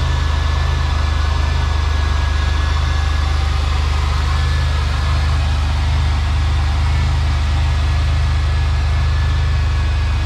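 Buick 3800 V6 engine idling steadily, heard close up over the open engine bay, with a faint steady whine on top.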